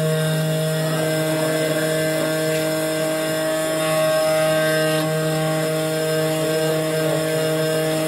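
Automatic key-cutting machine milling a car key blade: the cutter's spindle motor runs with a steady hum while the cutter works the metal.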